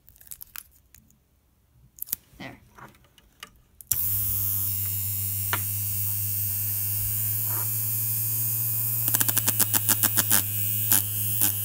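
Two small brushed DC hobby motors, battery-powered, start up suddenly about four seconds in and run with a steady electric whirring hum. Before that there are only a few light handling clicks. Near the end comes a quick run of rapid clicks.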